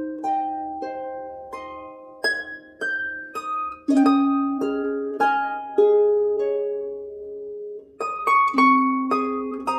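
Background instrumental music: a slow melody of plucked string notes, each struck sharply and ringing away.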